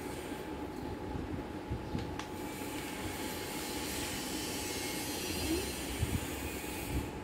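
Pen and felt-tip marker scratching on paper as two drawings are made at once, a steady hissing scrape that grows stronger about two and a half seconds in, with a few light taps. A faint steady whine sits underneath.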